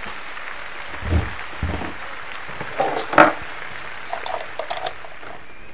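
Kitchen items being handled on a counter: two dull thumps about a second in, a sharp clatter just after three seconds, then a few light clicks and taps, over a steady hiss.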